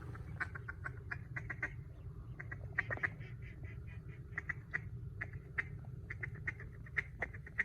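Ducks quacking in quick runs of short notes, several bursts of them in a row, over a steady low rumble.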